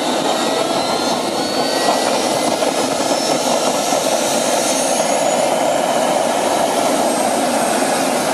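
Propane-started JetCat model gas turbine in an RC helicopter, lit and spooling up: a steady jet rush with several thin whines climbing in pitch over the first few seconds.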